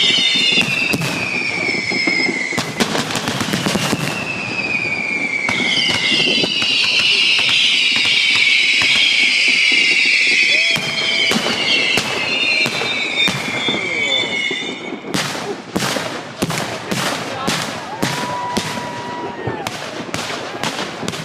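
Fireworks display: many whistling fireworks screaming at once, their high pitches wavering and falling, with scattered bangs, for about fifteen seconds. Then a rapid string of sharp bangs takes over.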